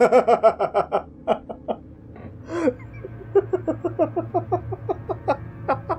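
A voice actor's sinister laughter in character as a demon: a quick burst of 'ha-ha' pulses, a short breath, then a longer run of even chuckles at about five a second.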